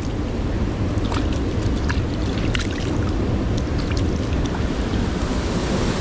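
Steady rushing of river water with wind rumbling on the microphone, and a few faint clicks scattered through it.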